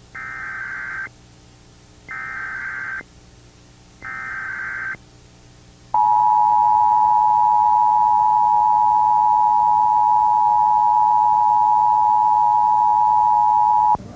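Emergency Alert System SAME header: three one-second bursts of digital data tones a second apart, encoding a Required Monthly Test. These are followed by the EAS two-tone attention signal (853 and 960 Hz played together), a loud steady tone held about eight seconds that cuts off suddenly.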